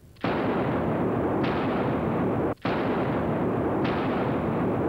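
Gunshots as a dramatic sound effect: about four shots roughly a second apart, each one's long echo running on into the next, with a short break in the middle.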